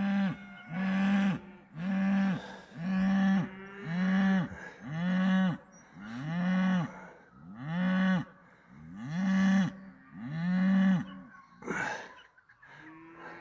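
A cow mooing over and over, about ten calls a little over a second apart, each one held briefly then dropping away. A short burst of noise comes near the end, after the last call.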